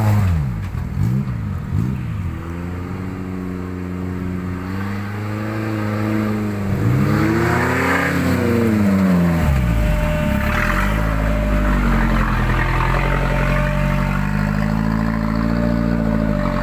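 Off-road 4x4's engine revving up and down under load: several quick rises and falls in pitch at first, a longer climb and drop around the middle, then running at a steadier speed through the second half.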